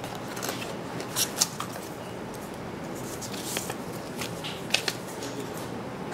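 Paper leaflets and the cardboard box insert being handled: crisp rustles and a few sharp paper flicks over a steady background hiss.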